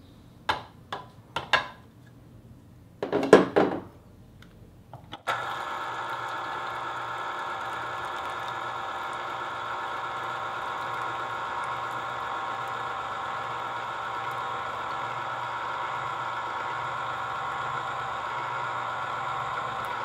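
A few clicks and knocks as the juicer's clear plastic cover is handled. About five seconds in, the Cuisinart Pulp Control citrus juicer's electric motor starts and runs with a steady hum as a grapefruit half is pressed down onto the spinning reamer.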